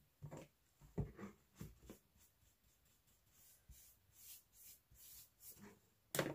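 Faint handling sounds of small paintbrushes: a few soft taps as brushes are picked up and set down on the table, then light swishing strokes of a brush dabbing paint on cardboard. A sharper knock comes near the end.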